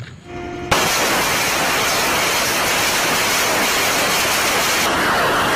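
A short faint tone, then about three-quarters of a second in a loud, steady rushing hiss like static starts suddenly and keeps on unchanged.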